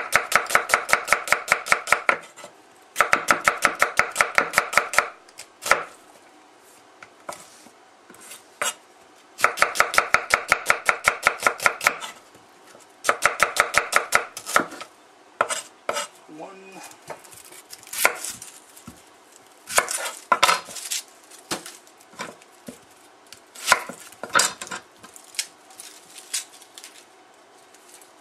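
Chef's knife chopping onions on a wooden cutting board: runs of rapid, even strokes, about eight a second, each run lasting a couple of seconds, then slower, scattered cuts through the second half.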